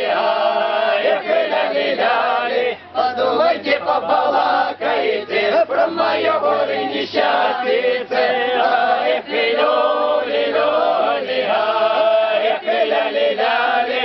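A small unaccompanied folk choir of mostly men's voices chanting and singing together, many voices overlapping at once, without clear words.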